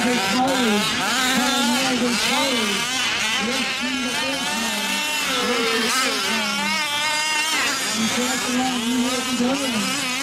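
Several 1/5-scale gas RC off-road trucks racing, their small two-stroke engines revving up and down over one another.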